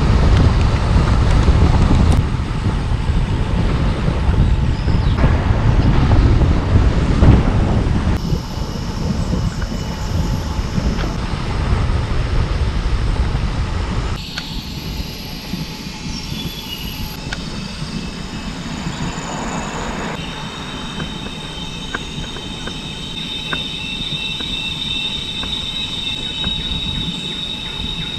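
Cicadas singing in a steady, high-pitched drone, plainest in the second half. For the first half a loud low rumble covers it, and it drops away suddenly about halfway through.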